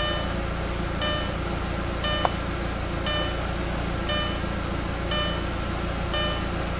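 Audi TT's dashboard warning chime sounding about once a second, a short multi-pitched tone each time, over the steady hum of its 1.8-litre turbo four-cylinder (AMU) engine idling. A single sharp click about two seconds in.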